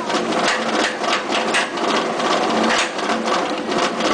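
Lift-hill chain of a Bolliger & Mabillard inverted roller coaster hauling the train up: a steady mechanical clatter over a low hum, with repeated sharp clicks of the anti-rollback, about two or three a second.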